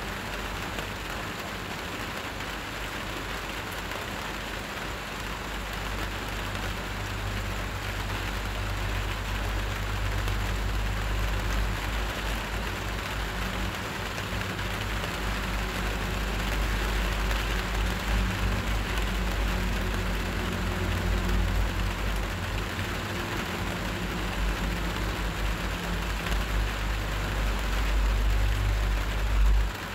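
Steady hiss of rain falling, with an uneven low rumble underneath that grows about six seconds in and carries a faint low hum for a stretch in the middle.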